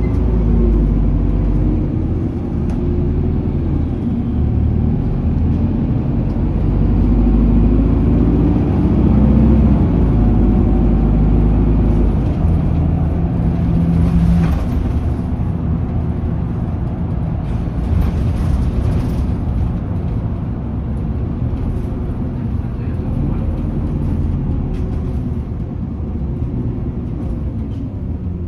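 Cabin sound of a 2020 Isuzu Erga city bus on the move: its diesel engine's revs rise and fall several times over the first dozen seconds as it picks up speed after a signal stop, over steady road and tyre noise. Toward the end the engine eases off and the sound drops as the bus slows for its next stop.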